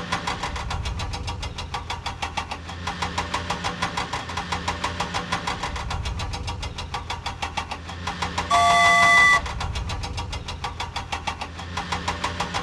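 Heavy diesel vehicle engine sound effect chugging steadily with rapid, even knocks, dubbed over toy play. About two-thirds of the way through, a loud horn honks once for under a second.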